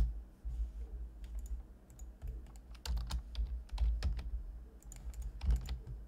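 Computer keyboard keystrokes in short, irregular clusters, some with a low thud from the desk.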